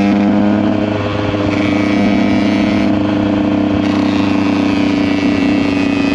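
Small two-stroke motorcycle engine running at fairly steady revs.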